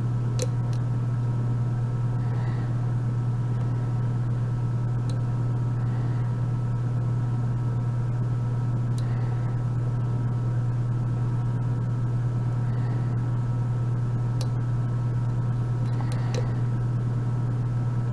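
Steady low hum from a fan or similar room machine, with a few faint, sharp clicks scattered through it from the pick working the pins of a euro lock cylinder during single-pin picking.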